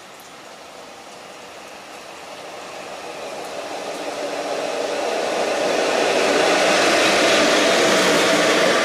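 Class 182 electric locomotive running light, approaching and passing close by. Its running noise grows steadily louder over about six seconds and stays loud to the end, over a hiss of rain.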